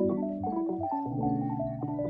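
Background music: an instrumental track with a melody of stepping pitched notes over a steady low beat.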